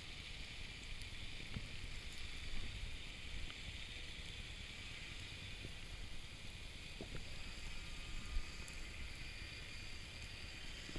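Underwater ambience through a camera housing: a steady low rumble of moving water with a hiss above it, a few faint clicks, and a soft knock late on.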